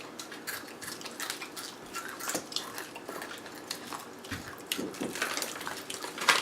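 Chewing crunchy spicy snacks, with many irregular sharp crunches and clicks and a louder burst of crunching near the end.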